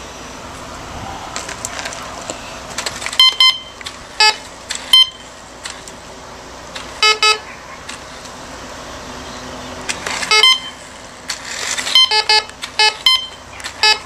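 Teknetics Alpha metal detector, mounted on a toy remote-control car, giving short high-pitched beeps in irregular clusters over a steady low whir. By the owner's account some of the beeps are false signals caused by interference from the car's radio control box, not metal.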